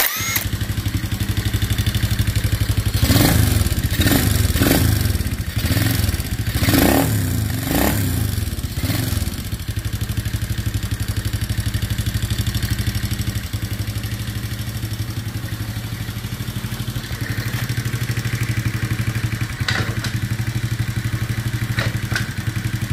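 Chinese 110cc ATV's small single-cylinder four-stroke engine, rebuilt with a new piston and cylinder, running at idle. It is blipped up in revs about half a dozen times in the first ten seconds, then idles steadily, with a couple of sharp clicks near the end.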